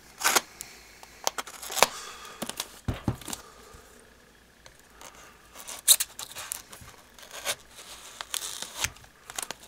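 A folding knife, a Chris Reeve Sebenza, slitting packing tape and plastic wrap on a cardboard parcel. The plastic crinkles and tears, with irregular sharp scratchy clicks.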